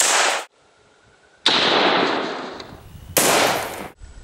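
Three sharp 5.56×45 mm rifle shots from an M855 62-grain load fired into a ballistics-gel block, about a second and a half apart, each followed by a ringing echo. The first and third shots cut off short.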